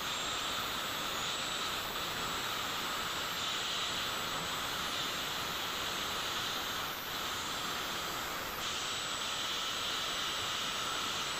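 Electric angle grinder running steadily with a steady whine, its abrasive disc grinding along the steel blade of a kukri.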